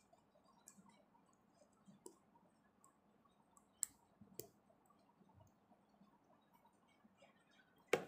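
Small plastic Lego pieces handled and pressed together by hand, giving a few scattered faint clicks, with one louder knock near the end.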